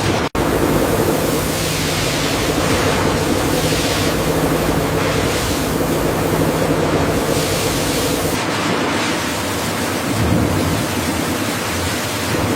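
Steady industrial machinery noise: a dense rushing hiss over a low, even hum. It cuts out for a split second just after the start.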